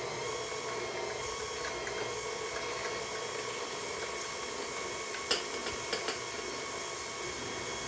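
Electric stand mixer running at a steady speed, its motor giving an even whine as it beats cake batter. A few light clicks come about five to six seconds in.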